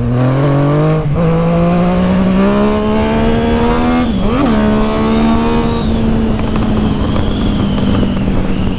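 Yamaha MT-09's inline-three engine accelerating hard and loud, its pitch climbing over the first few seconds with short dips about one and four seconds in, then holding steady at high revs.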